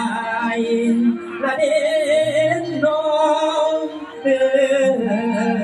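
Mor lam stage music: a singer holding long, wavering notes over the band.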